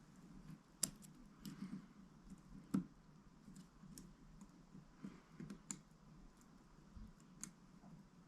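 Light, scattered clicks and taps of a tablet and its parts being handled during a screen repair. Two sharper clicks come about one second and about three seconds in.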